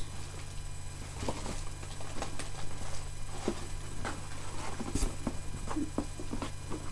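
Hands rummaging through items in a cardboard box: scattered light rustles, scratches and small knocks, over a steady low hum.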